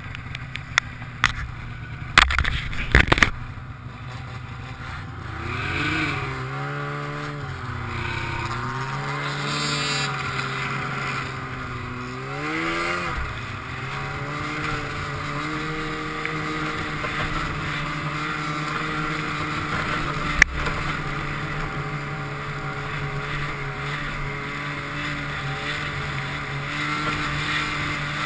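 Snowmobile engine running, its pitch rising and falling several times as the throttle is worked, then holding steady. A few sharp knocks in the first three seconds, and a single click about twenty seconds in.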